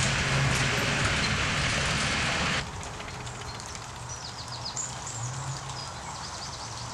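Tracked armoured vehicle's engine and tracks running loudly with a steady low hum. About two and a half seconds in, the sound drops off abruptly to a fainter engine hum, with faint high chirps over it.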